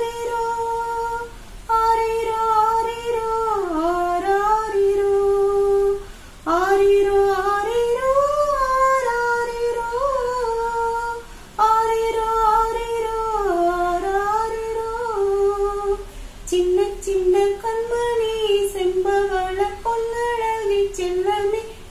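A woman singing a Tamil song solo and unaccompanied, in long held phrases with short breaks for breath between them.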